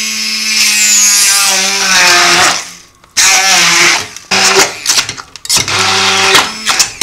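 Electric stick blender puréeing steamed pumpkin chunks in a steel pot, its motor running with a steady whine. The whine falls and stops briefly about three seconds in, then starts again in several short runs.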